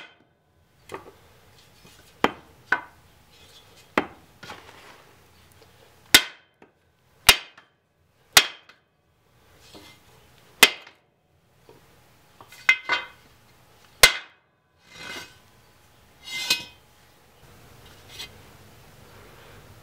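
A tomahawk forged from truck spring steel chopping into the edge of a steel angle iron resting on a wooden stump, in a test of its edge. About a dozen sharp metallic strikes, each with a brief ring, come one every second or two and stop a few seconds before the end.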